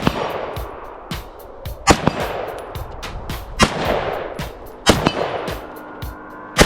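Slow-fire gunshots from a rifle or shotgun, five shots about one and a half to two seconds apart, each trailing off in an echo. Background music with a quick steady tick plays underneath.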